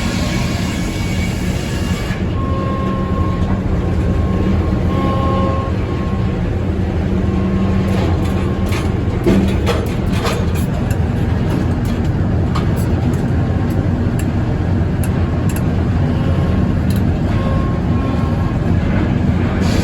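Sawmill running steadily, its engine hum underlying the noise of the saw at work, with scattered sharp knocks and rattles around the middle.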